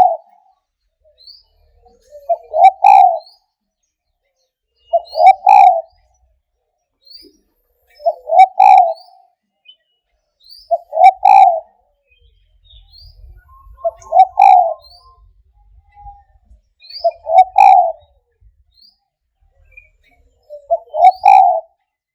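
Spotted dove (tekukur) cooing, repeating the same short phrase eight times, about once every three seconds. Faint, short high chirps come between the phrases.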